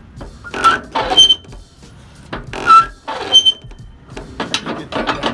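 Flatbed trailer strap winch being turned with a steel winch bar: three strokes, each a burst of metal clanking and ratcheting with short squeaks.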